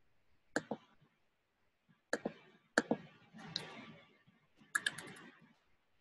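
Computer mouse clicks and keyboard keystrokes: a few separate clicks, then a quick run of keystrokes near the end as a web address is typed.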